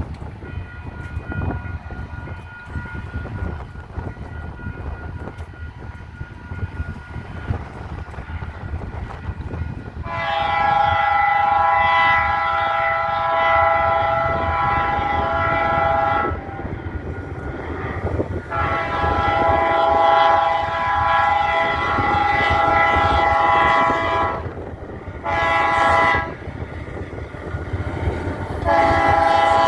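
Diesel freight locomotive's multi-chime air horn sounding the grade-crossing signal as it approaches: two long blasts, a short one, then a long one. Before the horn comes up loud, wind buffets the microphone over a low rumble from the approaching train.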